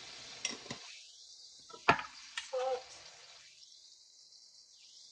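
A few sharp clicks and knocks from spice shaker containers being handled and tapped, the loudest about two seconds in, over a faint steady hiss.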